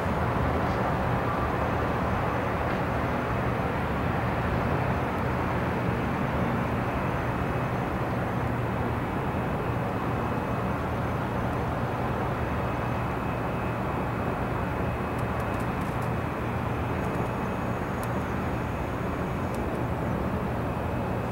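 Steady low rumble of distant city noise outdoors at night, even throughout with no passing rise or fall, and a faint thin high tone in the second half.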